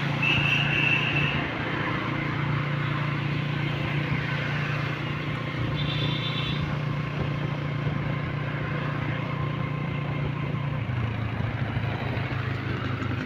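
Motorcycle engine running steadily with wind and road noise while riding, its low hum dropping in pitch about eleven seconds in as it slows. Two short high beeps cut through, one near the start and one about six seconds in.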